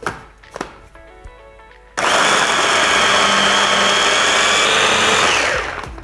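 Immersion blender with a chopper bowl attachment running, puréeing chickpeas into a thick hummus paste. It starts suddenly about two seconds in, runs steadily for about three seconds, and winds down near the end.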